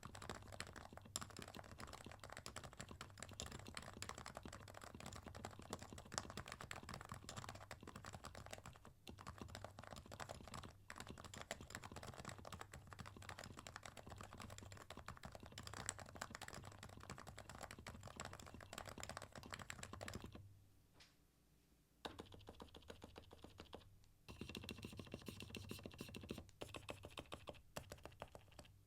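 Continuous fast typing on a Topre electro-capacitive keyboard (Realforce R2 PFU with 45 g domes, lubed sliders and DCS-profile keycaps), a steady stream of keystrokes with a short pause about twenty seconds in.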